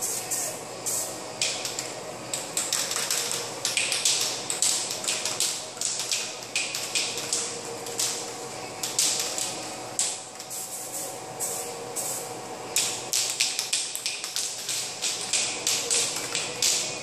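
Aerosol spray paint can being sprayed in many short bursts, each a brief hiss, in irregular runs.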